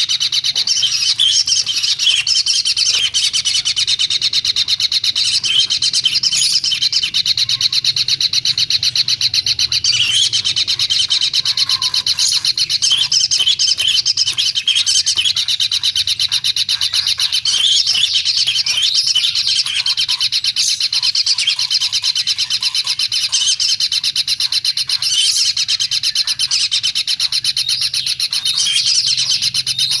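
A nestling bird's high, rasping begging calls, repeated rapidly and without a break, swelling louder every few seconds.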